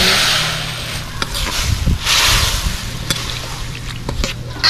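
Soy-sauce and calamansi marinade sizzling in a hot pan over sautéed onion, garlic and pepper, with surges of hissing at the start and about two seconds in. A few light clicks sound against the pan, and a steady low hum runs underneath.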